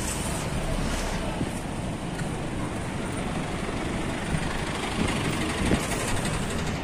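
Steady roadside traffic noise, an even rumble and hiss.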